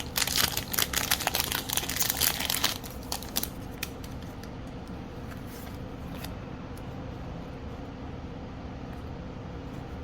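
Foil wrapper of a Pokémon card booster pack crinkling and tearing as the pack is opened, for the first three seconds or so. After that there is only a steady low hum.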